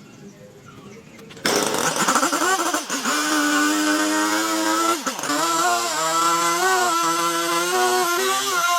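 A power tool's motor starts up loud about a second and a half in and runs on, its pitch dipping and recovering as it bites into wood under load.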